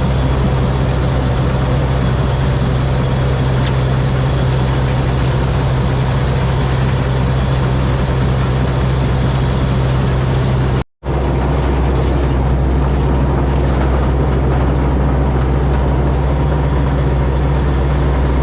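Combine harvester's 225 hp turbocharged Mitsubishi diesel engine running at a steady speed, a heavy, even drone. It cuts out for a split second about eleven seconds in, then carries on unchanged.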